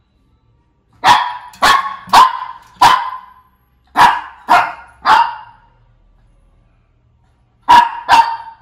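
Shih Tzu barking in three bursts: four barks in quick succession, a pause, three more, then two near the end.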